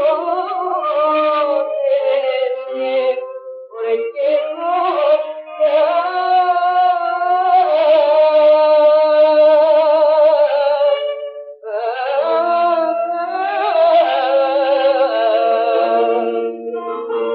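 Greek kleftiko song played from a 1928 HMV 78 rpm record with clarinet: a wavering lead melody in long held phrases over steady lower accompanying notes. The sound is thin and narrow, with no deep bass and no bright top.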